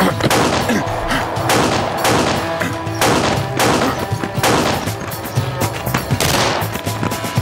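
Gunfire in a shootout: a string of sharp shots, roughly one or two a second, over a dramatic background music score.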